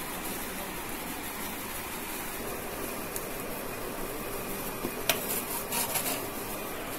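A serving spoon clicking and scraping against a plate a few times about five seconds in as cooked curry is spooned onto it, over a steady background hiss.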